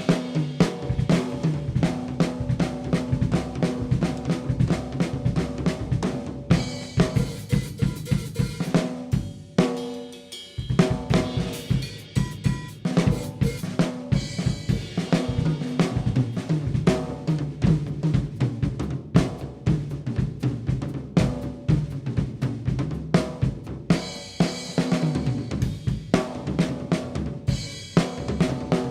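A Pearl Vision birch-shell drum kit played in a continuous beat, close-miked: kick, snare, hi-hat and cymbals struck throughout, with a short let-up about ten seconds in before the playing picks up again.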